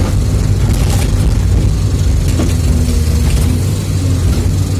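Sany SY365C excavator's diesel engine running steadily as its bucket digs into broken limestone, with a few sharp knocks of rock against the bucket, about a second in and again near the middle.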